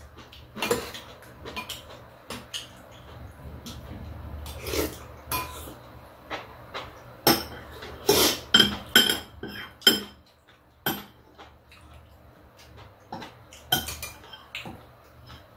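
Metal spoons and chopsticks clinking and tapping against ceramic bowls and a plate while eating: scattered sharp clinks, busiest about seven to ten seconds in.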